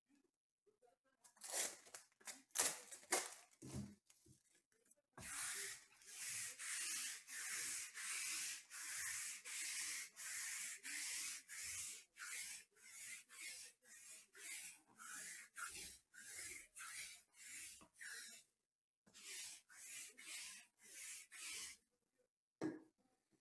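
Sticky lint roller rolled back and forth over a fabric mat, its tape peeling off the surface in crackly strokes. A few scattered strokes come first, then a steady run of about two strokes a second from about five seconds in, with a brief break near the end.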